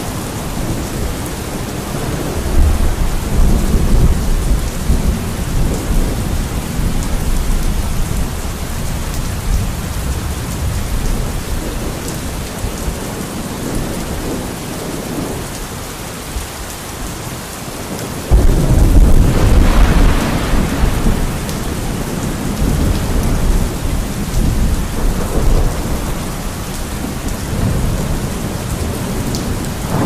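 Steady rain with thunder rumbling; a loud peal of thunder comes in suddenly about 18 seconds in.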